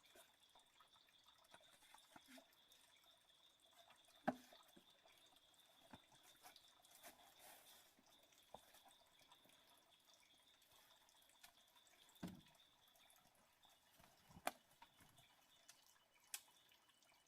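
Near silence broken by scattered faint drip-like taps and clicks, three of them louder than the rest, over a faint steady high-pitched tone.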